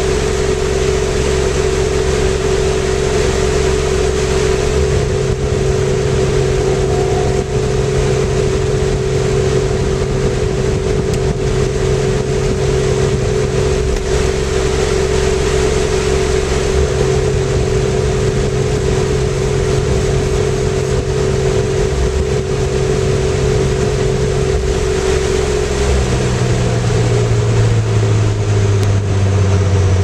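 Zanussi ZWF1421W washing machine spinning, heard from inside its drum: the motor and drum give a loud, steady whine and hum at a constant speed, then about 26 seconds in the pitch shifts and slides lower as the speed changes.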